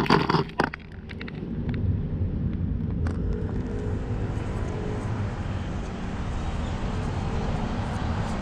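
A short burst of clattering at the very start, then a steady low rumble like a road vehicle going by, building up about a second in.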